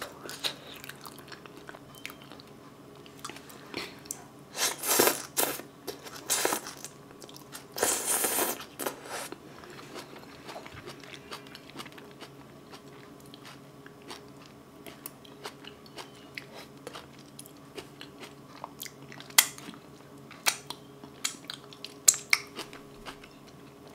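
Close-miked chewing and mouth sounds of a person eating soft boiled potato, with a few louder bursts about five and eight seconds in, then only scattered small mouth clicks.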